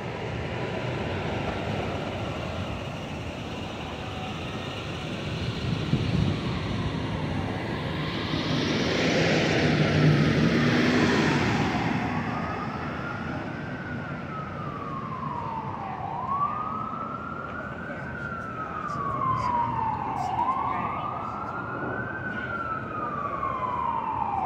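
Emergency-vehicle siren in a slow wail, sweeping quickly up and falling back about every four seconds. It is faint at first and clearer in the second half, over steady city-street traffic noise, and a vehicle passes, loudest about ten seconds in.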